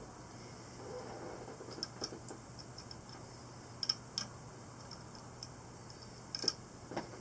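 A few scattered light clicks and ticks of a small tool working the screws of TPS scope rings as they are backed off and snugged to even the gap between the ring halves. The clicks come irregularly, the strongest about four seconds and six and a half seconds in.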